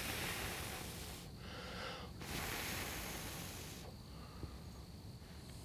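Two long, breathy blows of air, each lasting about a second and a half, with a short pause between them.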